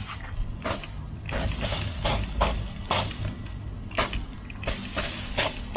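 Hand trigger spray bottle squirting water onto the hot charcoal under a barbecue grill, about ten quick squirts of spray at irregular spacing, to damp down the fire that is burning the meat.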